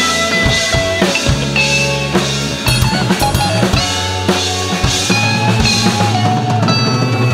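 Live rock band playing an instrumental passage: electric guitar over a full drum kit with steady kick and snare hits.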